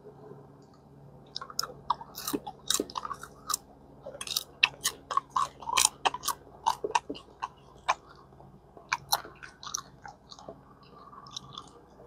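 Someone chewing freshly popped popcorn: a run of irregular, crisp crunches that starts about a second and a half in and thins out after about nine seconds.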